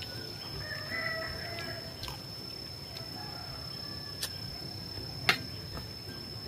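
A metal spoon clicks a few times against a metal serving tray during a meal, the sharpest click about five seconds in, over a steady high-pitched whine.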